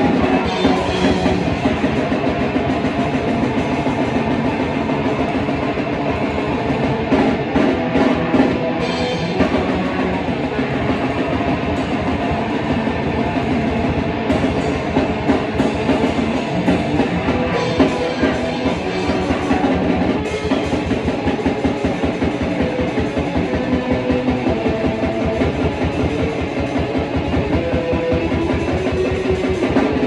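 Metal band playing: electric guitar riffing over fast, steady drumming on a drum kit.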